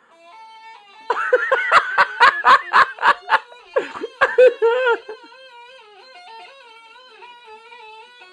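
A bagpipe chanter blown on its own, without the bag, playing a tune whose pitch steps up and down. Loud laughing, in quick pulses, sounds over it from about one second in to about five seconds in.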